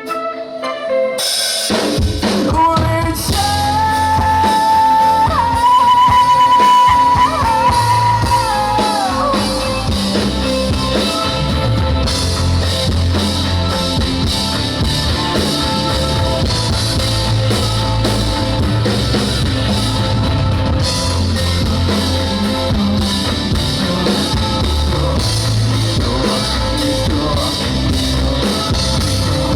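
Live rock band playing: after a quiet opening, drums, bass and electric guitar come in about two seconds in and keep a steady beat, with a held melody line that bends and falls away a few seconds later.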